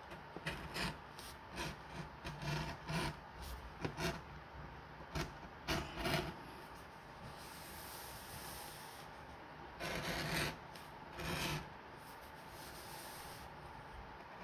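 Keen No. 3 edge beveler shaving the edge of a vegetable-tanned leather belt strap: a run of short scraping strokes, then after a pause two longer ones.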